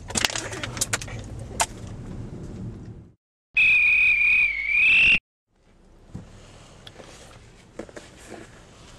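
A referee's pea whistle blown in one long, slightly warbling blast of about a second and a half; it is loud and cuts off suddenly. Before and after it, a moving car's cabin rumbles quietly, with clicks and rustling.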